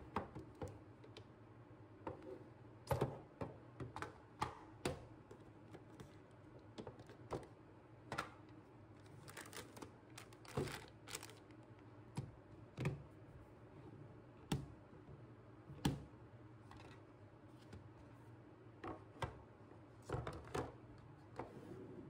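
Irregular clicks and knocks of hard plastic wet-wipe dispenser cases being handled, their lids opened and fitted and the cases set down on the table.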